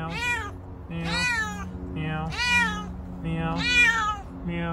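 Orange tabby cat meowing repeatedly: four loud meows about a second apart, each rising then falling in pitch.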